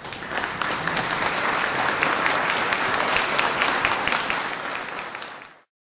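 Audience applauding, a dense patter of many hands clapping that builds quickly and cuts off suddenly near the end.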